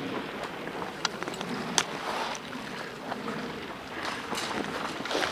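Steady rustling noise of movement or wind on the microphone, broken by a few single sharp snaps of airsoft guns firing, about one, two and four seconds in.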